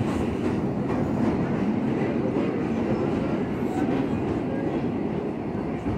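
A train running on rails, with a steady rumble of wheels on track.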